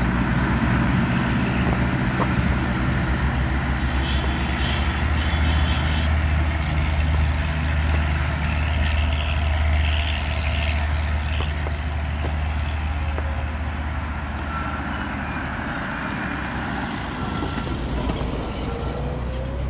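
Narrow-gauge diesel locomotive of the Darjeeling Himalayan Railway working slowly past with its coaches, its engine a deep steady drone that eases off as the train draws away. Brief high squeals come about four and ten seconds in.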